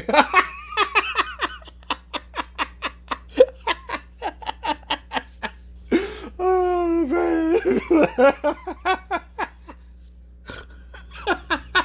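A man laughing hard in rapid bursts of belly laughter, about four or five pulses a second. About six seconds in comes one long, high-pitched laugh held for nearly two seconds, before the quick bursts return.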